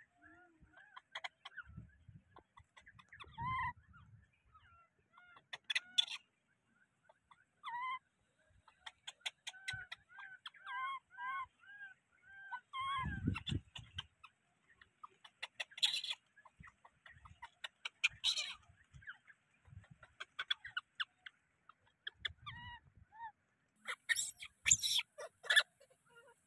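Short animal calls, each rising and falling in pitch, repeated many times and in quick runs of four or five, with a few short crackling rustles.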